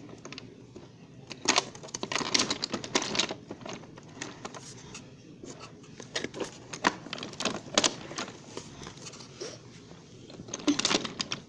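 Toy trains and track pieces clicking and clattering in short bunches as they are handled and moved, about three bursts of rattling.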